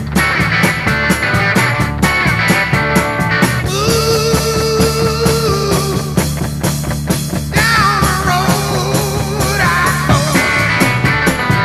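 Rock music laid over the footage: a steady drum beat under a melodic lead line that bends in pitch in the middle.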